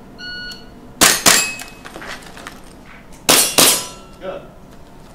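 Shot timer start beep, then two airsoft rifle shots about a third of a second apart; about two seconds later two airsoft pistol shots in quick succession. Metallic clangs ring after the shots.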